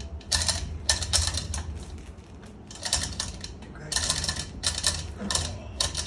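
Chain hoist clicking and rattling in quick runs as its chain is pulled through to lower a rebuilt engine, with a low hum underneath.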